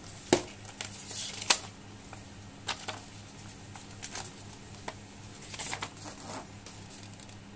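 Paper rustling and crackling as a folded instruction leaflet and packaging are handled and unfolded, with a few sharp crackles in the first second and a half and a longer rustle near the end. A steady low hum runs underneath.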